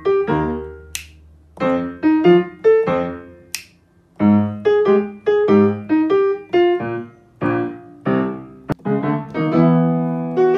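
Background music: a piano or keyboard tune of short, separate notes, with a sharp click about nine seconds in.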